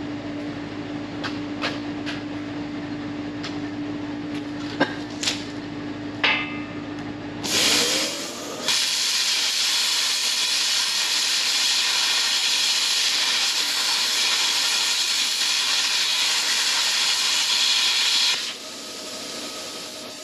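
Steady hum with a few sharp metal clicks and knocks, then about eight seconds in a loud steady hiss starts. It runs for about ten seconds and drops away near the end.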